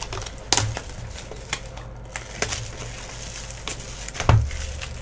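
Cellophane shrink wrap being torn and pulled off a cardboard trading-card hobby box, with irregular crinkling and sharp crackles. There is one louder dull thump a little after four seconds in.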